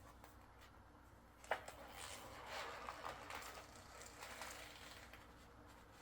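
Faint, uneven rustling and crinkling of paper backing as it is peeled off a vinyl window decal, with a single light tap about a second and a half in.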